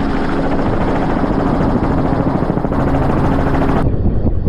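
Helicopter in flight heard from on board: steady, loud rotor and engine noise with a rushing hiss. Near the end the hiss drops away abruptly, leaving the lower rotor noise.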